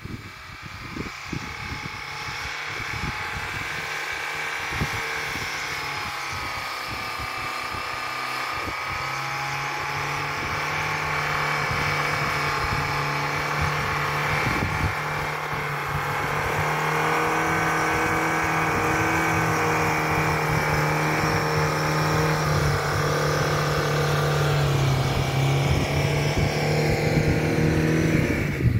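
Lada Niva's four-cylinder engine running under load as the 4x4 pushes through deep snow, growing steadily louder as it comes closer. It holds a steady note, with a slight drop in pitch a few seconds before the end.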